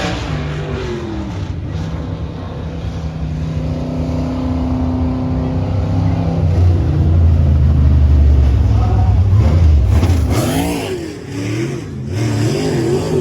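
Dirt-track modified race car engines running hard, revving up and down, loudest about two-thirds of the way through, with a brief dip near the end.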